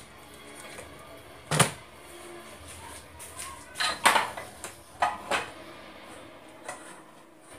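A few sharp knocks and clatters from household things being handled, such as cupboard doors or dishes. The loudest come about a second and a half in and again around four seconds in, with two smaller ones soon after.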